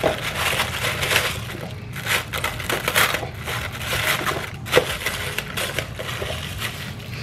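Thin clear plastic bag crinkling and rustling as it is stretched and tucked over a bowl, in an irregular run of crackles.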